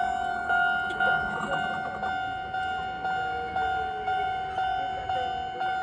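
Japanese railway level-crossing warning bell ringing in even, ringing strikes about twice a second.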